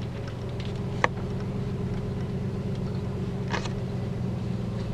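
Car engine running, a steady low hum heard from inside the cabin. A single sharp click comes about a second in, and a brief short noise comes around three and a half seconds.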